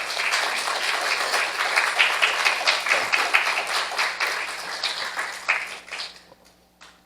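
Congregation applauding, a dense patter of many hands clapping that dies away about six seconds in.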